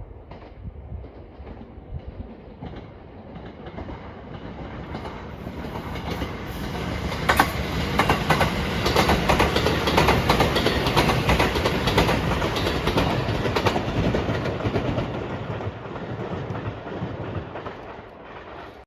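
Electric train passing at speed: the running noise builds up, the wheels clack rapidly over the rail joints at its loudest in the middle, then it fades away.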